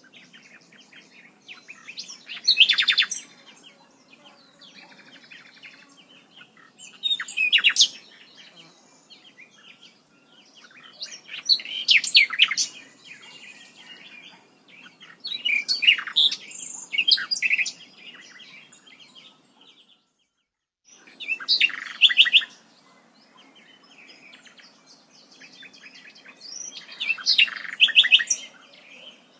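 A songbird singing: about six loud phrases of rapid high chirping notes, each a second or so long, repeated every four to five seconds, over a faint steady background.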